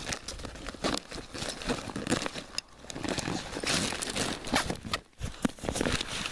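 Vinyl-coated polyester lining of a backpack's main compartment crinkling and rustling as it is handled, in irregular bursts, with a brief pause about five seconds in.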